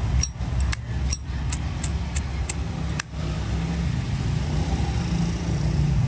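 Silver Zippo lighter's hinged lid being flicked open and shut, a run of sharp metallic clicks about two to three a second, ending with a louder click about three seconds in. A steady low rumble of traffic runs underneath.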